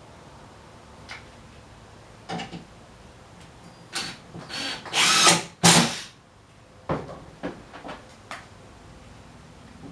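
Drill driving a screw into wood in short bursts, the loudest two about halfway through, with scattered clicks and knocks of wooden parts being handled before and after.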